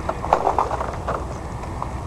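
Footsteps on thin, wet pond ice: a quick run of hollow knocks in the first second, then a few more, over a low wind rumble.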